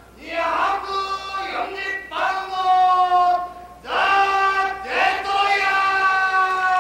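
Ring announcer's drawn-out, sing-song call introducing the wrestlers: four long held syllables at a steady pitch, the last held about two and a half seconds.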